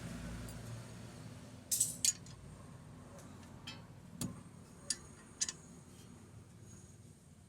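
Metal tools and parts clinking against each other: about six sharp, ringing clinks, the loudest two close together just under two seconds in. A low rumble fades away in the first couple of seconds.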